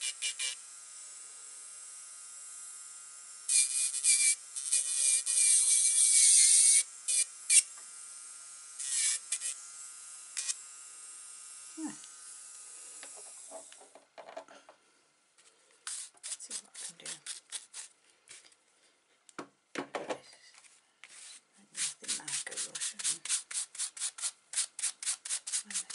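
Electric nail drill (e-file) running with a steady whine, grinding against artificial nails in loud spells; it stops about halfway through. After that, quick back-and-forth strokes of a hand nail file rubbing on the nails, several a second.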